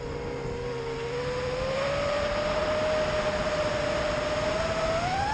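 Tyro 99 quadcopter's brushless motors and propellers whining in flight over a steady rush of air. The pitch dips, holds level, then climbs sharply near the end as the motors speed up.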